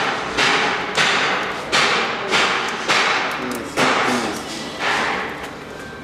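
A run of about seven sudden thuds, roughly one every two-thirds of a second at first and spacing out near the end, each fading away over about half a second.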